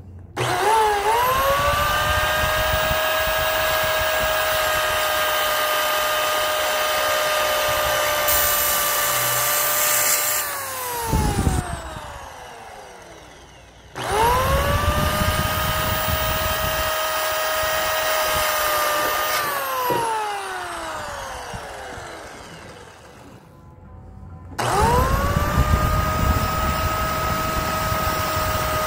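Rockwell compact circular saw motor spinning up with a fast rising whine, running at a steady high-pitched scream that sounds like an F1 race car, then winding down with falling pitch after it is switched off. This happens twice, and it spins up a third time near the end.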